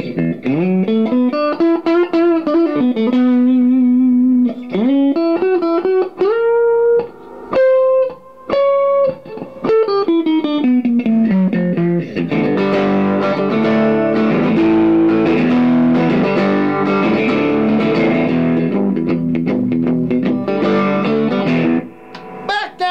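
Custom Strat-Tele hybrid electric guitar played through an amp. For about the first half it plays single-note lead lines with string bends and held, wavering notes. Then it strums fuller chords, stopping shortly before the end.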